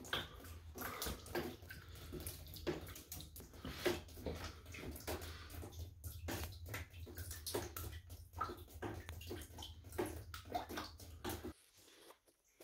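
Water from a burst pipe dripping and splashing in the bathroom in many irregular drips, over a low steady hum that stops near the end.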